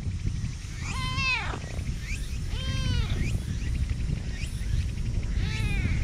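Domestic cat meowing: three short arched meows, about a second in, near three seconds and near the end, with a few fainter ones between, over a steady low rumble.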